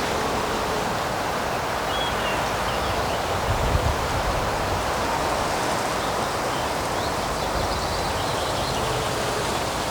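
Steady rushing outdoor woodland ambience, an even hiss-like noise of air moving through the trees or running water, with a brief low wind rumble on the microphone about three and a half seconds in.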